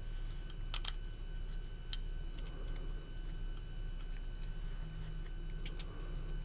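Small clicks and taps of Benchmade Bugout folding-knife parts being handled and fitted together during reassembly, with a sharper double click about a second in. A steady low hum runs underneath.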